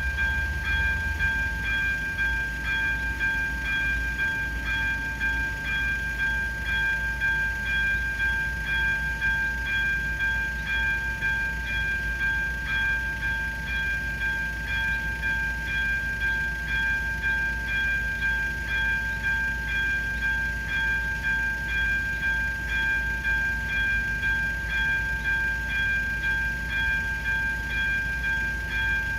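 AŽD 71 level-crossing warning signal ringing: its electronic bell repeats a bright tone rapidly and evenly, without a break. A low rumble runs underneath.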